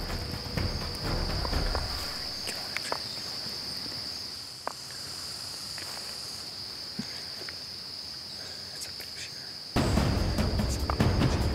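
Steady, high-pitched chorus of insects in summer woodland, with faint ticks and rustling over the first few seconds. With about two seconds left, louder music cuts in suddenly over it.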